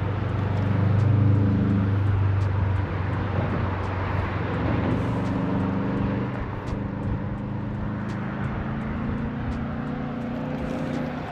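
An engine running steadily, a low hum, loudest about a second in and slowly easing off.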